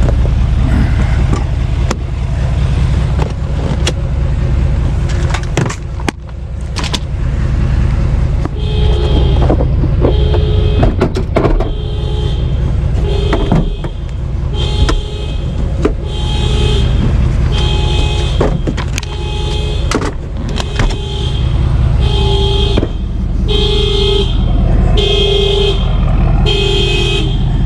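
A car horn honking in a steady series, about one honk a second, starting about nine seconds in: a car alarm going off. Under it an engine idles steadily.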